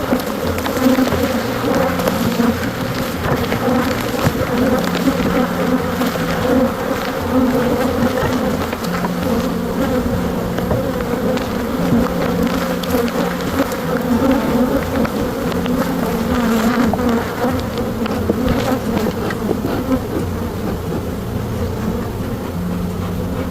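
Many honey bees buzzing in a loud, dense, steady hum around an opened hive, with a few brief knocks.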